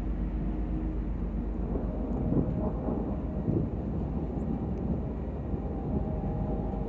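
Distant thunder rumbling from a supercell thunderstorm over a steady low rumble, swelling about two and a half and three and a half seconds in.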